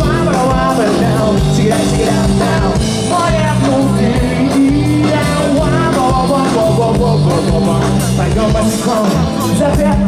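Live rock band playing through the stage sound system: drum kit and electric guitar.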